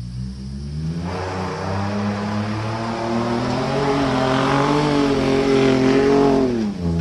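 Pickup truck engine revving hard as the truck drives along a dirt track toward and past the listener. The pitch climbs steadily and the sound grows loudest about six seconds in, then the pitch drops sharply as the truck goes by near the end.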